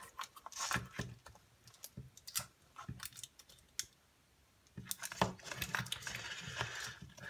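Hands handling a plastic LED lamp housing: scattered light plastic clicks and taps, then denser rubbing and scraping with more clicks over the last couple of seconds.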